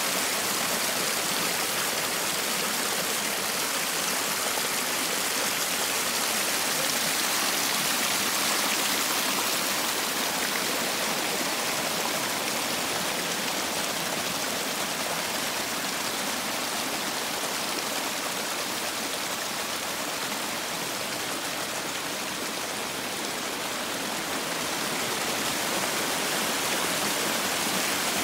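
Steady, unbroken hiss of rain and running water: rain falling, with muddy runoff floodwater pouring down an eroded hillside gully.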